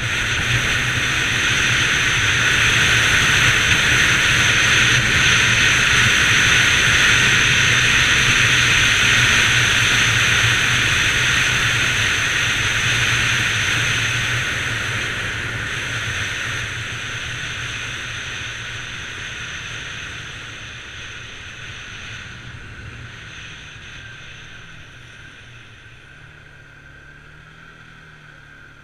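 Bajaj Pulsar 200 NS motorcycle riding at speed: a steady single-cylinder engine note under loud wind rush. Both fade steadily through the second half as the bike slows.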